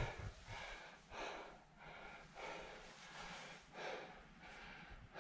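Faint breathing of a runner catching his breath, with a breath roughly every second.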